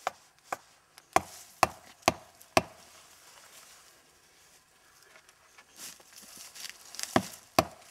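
Sharp blows of a tool cutting into the bark of a stringybark tree, about two a second for six strikes, then a pause of about three seconds and two more blows near the end.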